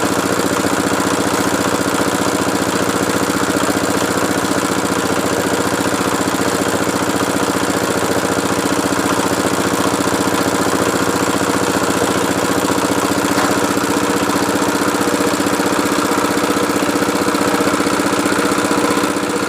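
Small engine of a well-drilling machine running steadily at constant speed, with a fast, even firing beat.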